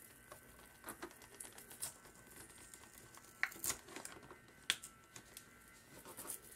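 Faint, scattered scrapes and clicks of a plastic spudger prying along the edge of a digital kitchen scale's plastic control-panel housing, lifting its adhesive membrane overlay; a few sharper clicks come in the second half.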